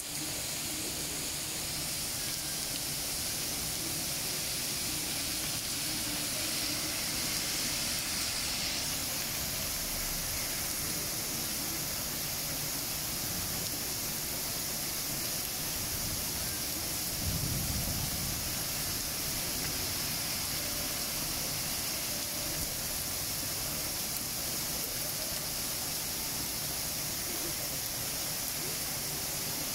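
Heavy rain pouring down steadily, a dense even hiss. A brief low rumble swells about halfway through.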